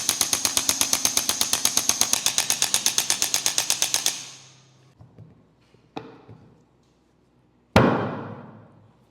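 Electric percussion device hammering rapidly and evenly, about ten strikes a second, then switching off about four seconds in. A small click follows, and near the end one loud thud that rings out for over a second.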